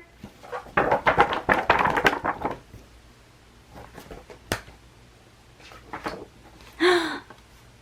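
A picture book being shaken, its pages and cover rattling in rapid strokes for about two seconds. A few single taps follow, and a short vocal sound comes near the end.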